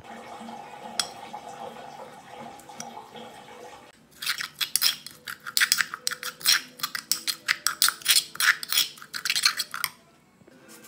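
Metal spoon scraping and clinking against a granite mortar while stirring a thick spice-and-salt paste: rapid, uneven strokes several times a second, starting about four seconds in and stopping shortly before the end.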